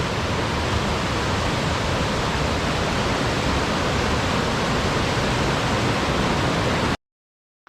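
Steady, loud rushing noise with no pitch or rhythm, cutting off abruptly about seven seconds in.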